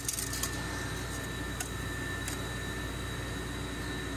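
Steady machine hum with a thin high-pitched whine over it, and a few faint light clicks.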